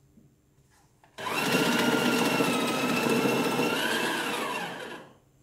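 A motor-driven machine starts abruptly and runs for about four seconds with a loud, steady whine, which rises slightly in pitch shortly before it winds down and stops.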